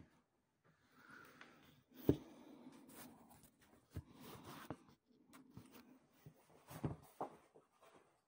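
Phone being handled and set down: rubbing against the microphone and a few scattered knocks, the loudest about two seconds in, with faint rustling of someone moving about.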